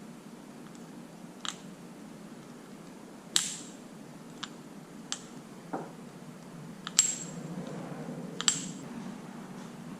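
Scattered sharp clicks and clinks of small hard parts or hand tools being handled, about seven in all, the two loudest with a brief metallic ring, over a steady low hum.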